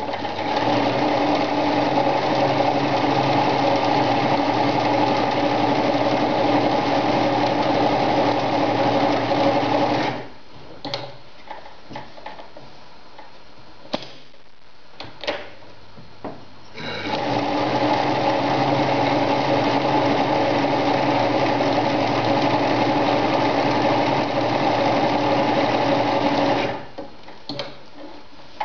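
Victoria Nutzstich ZZ-580 electric sewing machine stitching through folded layers of denim, running steadily for about ten seconds, stopping, then running again for about ten seconds. Scattered clicks and knocks of the fabric and machine being handled fill the pause and follow the second run.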